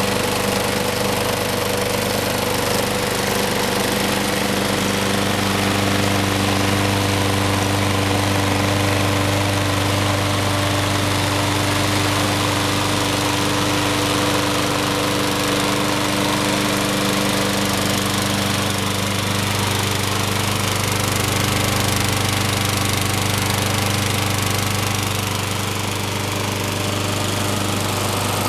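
The single-cylinder 6.5 HP Briggs & Stratton OHV engine of a John Deere JS63C walk-behind mower, running steadily at a constant speed.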